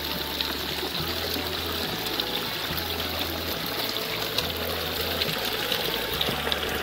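Rushing stream water: a steady, even rush of water heard close up.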